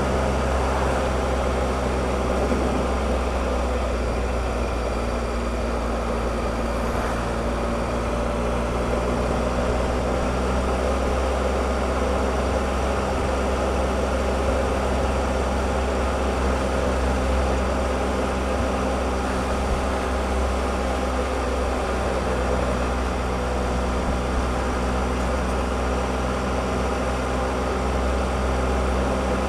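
Triumph Explorer motorcycle's three-cylinder engine running at a steady pitch while cruising, over a steady rush of wind and road noise.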